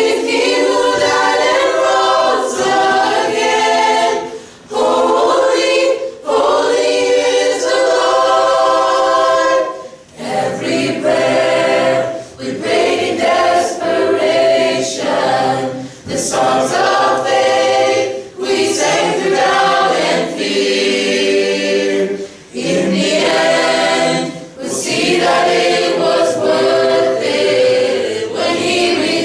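A mixed high school choir singing a cappella, in sustained phrases with short breaks between them.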